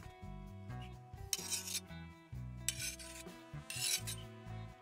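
Steel cleaver blades scraping chopped chili paste across a wooden chopping board, a few short rasping strokes, over background music.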